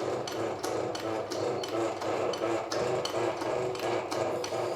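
Regular metallic clicking, about four clicks a second, from the workshop lifting hoist as it takes the crankshaft, over a steady low hum.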